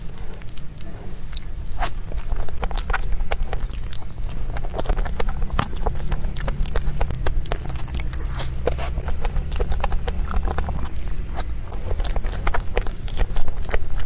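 Close-miked eating of a soft crepe towel roll: chewing with many quick, irregular wet mouth clicks and smacks over a low steady hum.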